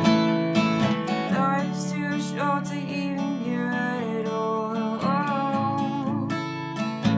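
Music: a strummed acoustic guitar with a woman singing over it.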